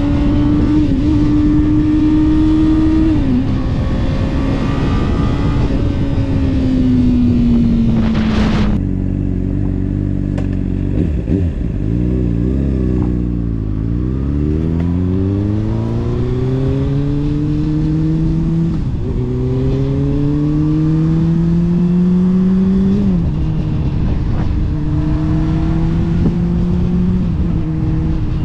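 Honda CBR600RR's inline-four engine breathing through a Yoshimura RS-5 exhaust, heard from on the bike with wind rush on the microphone. The engine cruises, then eases off until the revs bottom out about twelve seconds in, and pulls away again, rising in pitch with upshifts about nineteen and twenty-three seconds in.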